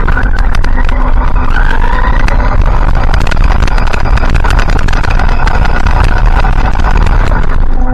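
WLToys RC buggy driving, its electric motor whining and rising and falling in pitch with the throttle. Underneath are a loud steady rumble and many rattling clicks.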